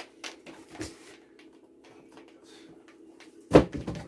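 Packaging being handled: scattered short rustles and clicks, with one sharp knock about three and a half seconds in, over a steady low hum.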